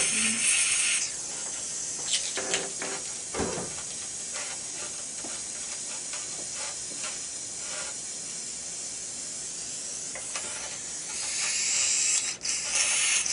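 Dental surgical suction hissing at the mouth, loud for about the first second and again for the last second or two, with a softer steady hiss and a few small clicks in between.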